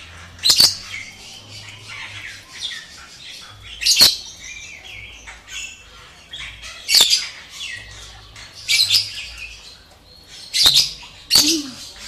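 African grey parrot calling: about six loud, short, sharp calls a second or two apart, with softer chattering between them.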